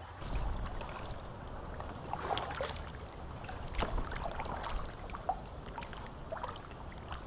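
Water lapping and splashing softly against a plastic kayak hull as the kayak moves, over a low steady rumble, with a few light knocks and clicks.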